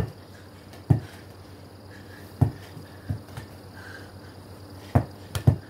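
Dull, irregular thumps of a small Nerf foam basketball being bounced and tossed, about seven in all with a quick pair near the end, over a faint low room hum.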